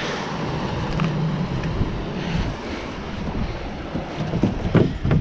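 Wind buffeting the microphone over the wash of waves and water, with a few sharp knocks near the end.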